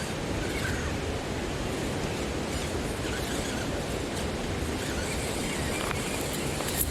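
Steady rushing noise with a few faint clicks, and a sharper click near the end.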